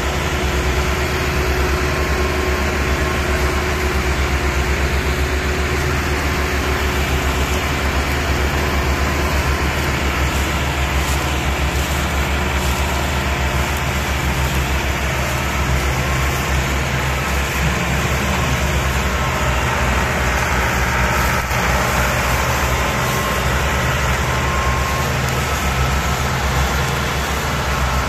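Ford 3610 tractor's three-cylinder diesel engine running steadily under load while pulling a heavily loaded sugarcane trolley, with a deep, fast, even pulsing exhaust beat.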